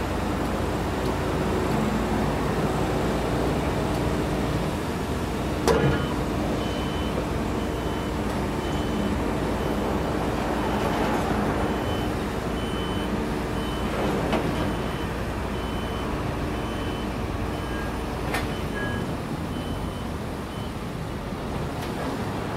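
Grumman Olson step van's engine running as the van creeps forward down a lowboy trailer deck, with a sharp knock about six seconds in. A high beep repeats about once a second through the middle.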